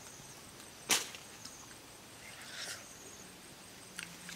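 Eating a ripe mango: one sharp mouth smack about a second in as the lips pull off the fruit, then a softer slurp and a small click near the end, over faint high chirping.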